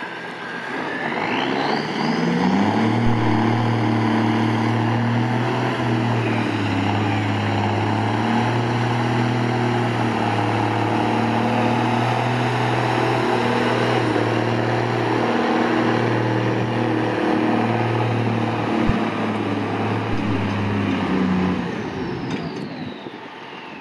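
Turbocharged 7.8 L multifuel engine of a 1961 M35A1 6x6 army truck revving up and holding steady high revs under load while towing a stuck truck out of soft ground, then easing off shortly before the end. A high whine climbs as it revs up and falls away as it slows.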